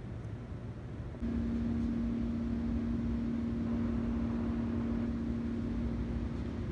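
Steady low mechanical hum with a held tone over a rumble. It gets louder about a second in.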